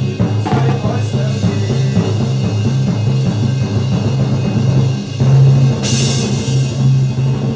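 Dramatic background music carried by a steady, repeating low drum beat.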